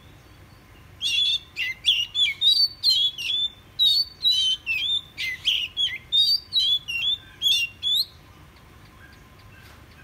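Oriental magpie-robin singing: a fast string of varied, clear whistled notes. It starts about a second in and stops after about seven seconds.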